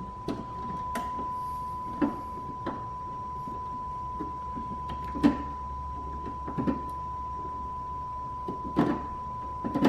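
A steady, unbroken high electronic tone, with irregular light clicks and knocks from multimeter probes and hands working at a car's reverse-light wiring harness; the sharpest knocks come about five seconds in, near the end, and right at the close.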